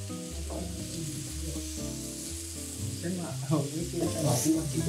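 Omena (small lake fish) sizzling as they fry in a pan, with background music underneath.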